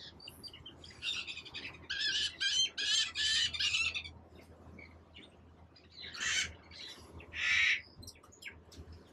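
Caged birds squawking and chattering: a run of harsh, rapid calls in the first few seconds, then two louder drawn-out squawks about six and seven and a half seconds in.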